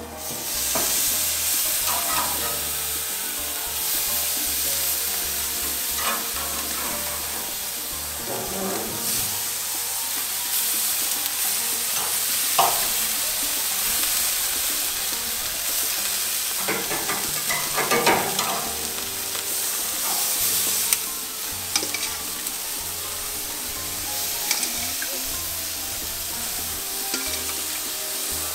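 Marinated chicken sizzling steadily on a hot charcoal braai grid as pieces are turned and laid down with metal tongs, with a few sharp clicks of the tongs against the grid.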